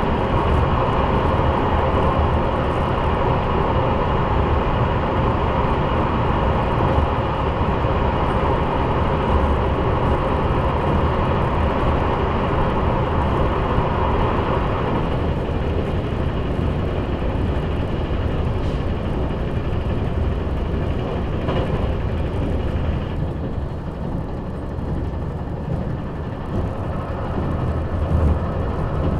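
KiHa 187 series diesel railcar under way, heard inside the passenger cabin: a steady deep engine drone over wheel and rail noise while running through a tunnel. A higher, whining tone, which seems to come from the transmission gears, fades about halfway through.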